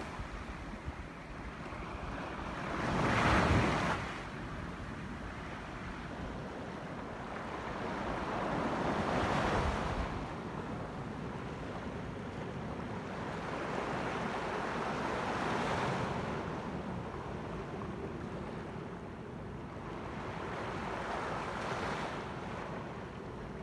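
Small ocean waves breaking and washing up a sandy beach, one swell about every six seconds; the first, about three seconds in, is the loudest.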